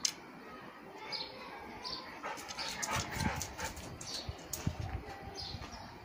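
Cane Corso whimpering. Short high bird chirps run through it, and a few low thumps come about halfway through.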